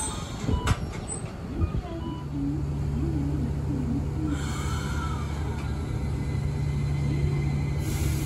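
Iyotetsu 5000-series low-floor trams at a stop, one pulling away. Irregular knocks and clatter for the first two seconds, then a steady low electrical hum. Short hisses of air come about four seconds in and again near the end.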